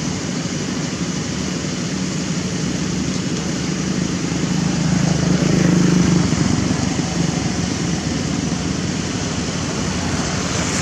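A motor vehicle passing by: a low engine hum over steady outdoor background noise, swelling to its loudest about halfway through and then fading away.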